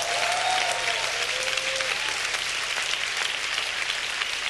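Congregation applauding steadily, with a voice or two calling out in the first couple of seconds.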